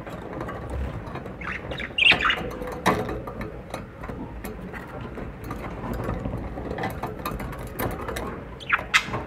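Budgerigars in a cage giving short harsh squawks, a burst about two seconds in and another near the end, with scattered light clicks and scratches between them.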